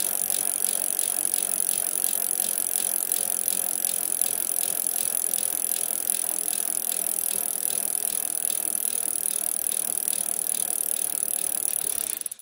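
A steady hiss with an even, rapid mechanical clicking, about three or four clicks a second.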